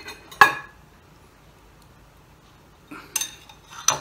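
Metal ladle clinking against a stainless steel soup pot and a glass bowl as soup is ladled out. There is one sharp clink about half a second in, a quiet stretch, then a few quick clinks near the end.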